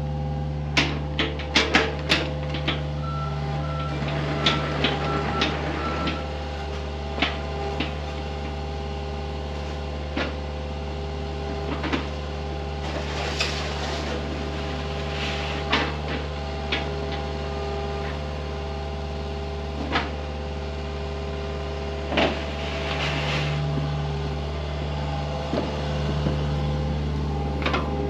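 Diesel excavator running steadily with a whine over the engine drone, while it works the sand with scattered knocks and clanks.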